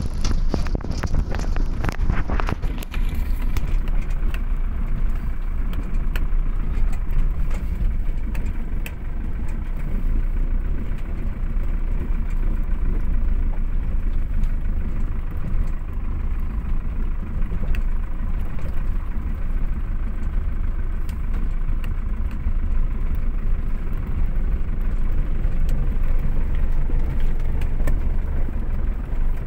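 Car cabin noise while driving slowly on a rough gravel road: a steady low rumble of tyres and engine, with scattered small clicks and knocks. There is more hiss and clicking in the first few seconds.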